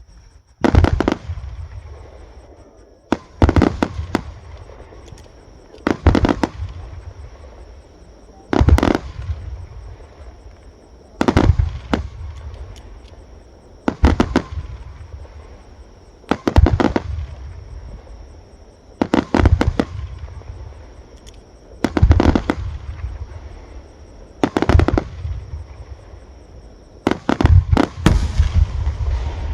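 Fireworks shells bursting, a loud bang about every two and a half seconds, some of them doubled. Each bang trails off slowly.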